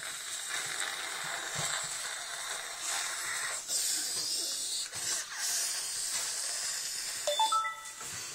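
Breathy hissing and wheezing from a man sniffing and snorting hard through his nose after snorting a line of hot curry powder, with a short rising whistle-like squeal near the end.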